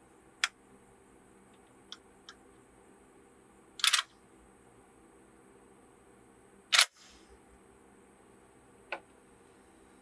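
A few sharp mechanical clicks and clacks spaced a few seconds apart, the loudest a quick double clack about four seconds in and a single clack near seven seconds, with fainter ticks between.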